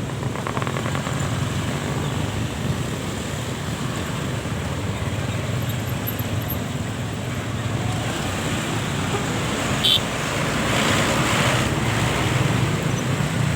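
Steady roadside traffic noise, a rushing rumble with no horn tune in it. A short sharp knock about ten seconds in, then a louder rush for a couple of seconds as a vehicle passes close.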